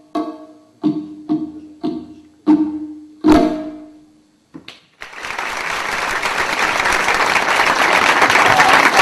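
Tonbak (Persian goblet drum) struck in a run of ringing strokes about every half second, the last and loudest about three seconds in, ending the piece. About two seconds later an audience starts applauding, the clapping growing and continuing.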